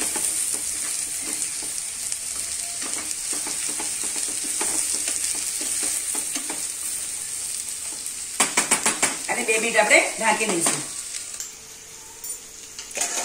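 Chopped onion, tomato, capsicum and green chilli frying in oil in a nonstick pan, sizzling steadily while a spatula stirs and scrapes through them. About eight seconds in come a few sharp knocks, and the sizzle falls away near the end.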